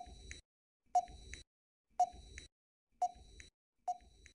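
Quiz countdown timer sound effect: five short electronic beeps, about one a second, each followed by a fainter tick.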